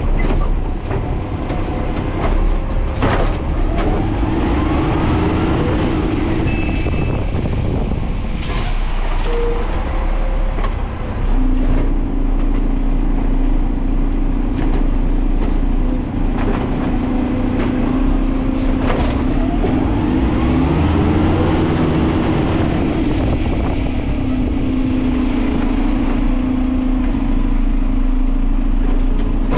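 Side-load garbage truck running, its engine rumbling steadily. Twice, about sixteen seconds apart, the sound rises and falls, with a few sharp hisses and clicks between. A steady hum comes in about a third of the way through.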